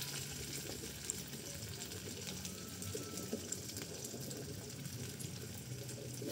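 Cassava pieces frying in garlic oil in a wok, a steady low sizzle with a few faint ticks.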